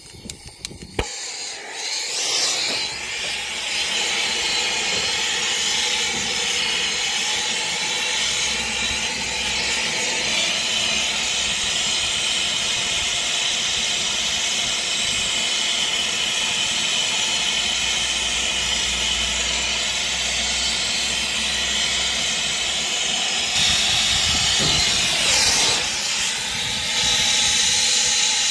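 Brazing torch flame hissing steadily as it heats a brazed copper line joint on an air-conditioner compressor to sweat it apart. It comes on about a second in and gets louder near the end.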